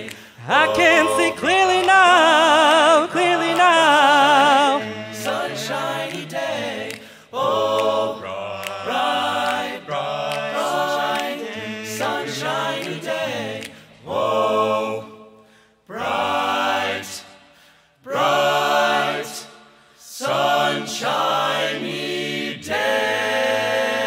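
All-male a cappella group singing in close harmony, with one voice carrying a wide vibrato high above the chords in the first few seconds. The chords then go on in short phrases with brief pauses between them.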